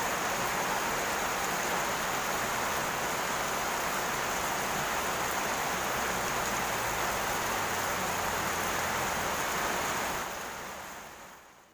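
Steady rain falling, an even hiss that fades away near the end.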